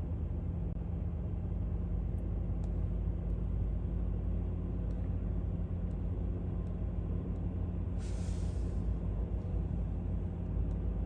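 Jet airliner engines rumbling steadily, with a steady low hum under the rumble. A brief hiss comes about eight seconds in.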